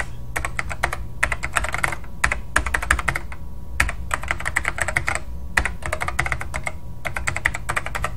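Computer keyboard typing: runs of rapid keystrokes broken by short pauses, about half a dozen runs.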